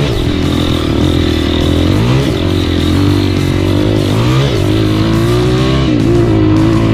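Single-cylinder four-stroke trail motorcycle engine running loud under load, its pitch rising and falling several times as the throttle is worked.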